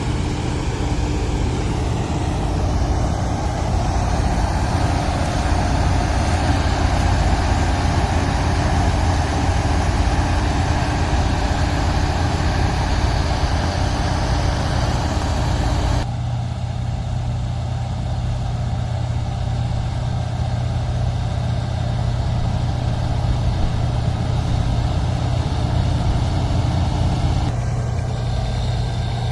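Engine of a harvesting machine running steadily while cutting a rice crop, a continuous low hum. About halfway through, the higher hissing part of the sound drops away abruptly.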